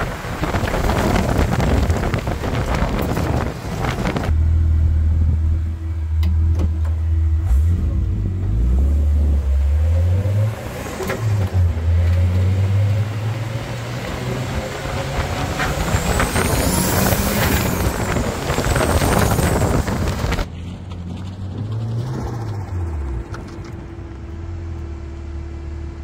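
Turbocharged RB25DET straight-six in a Nissan 240SX being driven, the engine revving up and falling back repeatedly through the gears, with a high turbo whistle rising and falling twice as it spools. Near the end the engine settles to a steady idle with one short rev.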